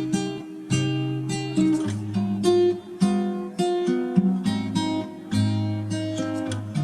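Background music: acoustic guitar strummed in a steady rhythm, with a new chord struck about every half second to second.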